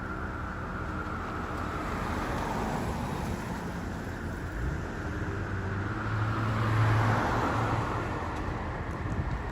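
Road traffic noise with a vehicle engine passing, loudest about seven seconds in. A faint whine falls and then rises again in the background.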